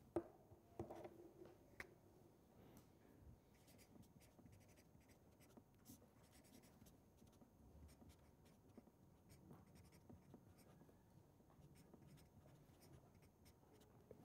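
Faint scratching and light tapping of a pen writing on paper, in short irregular strokes.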